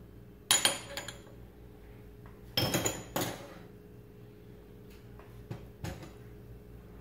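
A metal spoon clinking sharply against a glass mixing bowl in two quick clusters, about half a second in and again about two and a half seconds in. A silicone spatula stirring the dough mix knocks the bowl twice more, more faintly, near the end.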